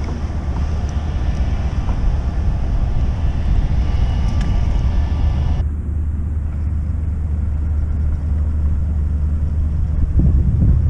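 Wind rumbling on the camera microphone as the kayak moves over the water, with a higher hiss that cuts out suddenly a little past halfway.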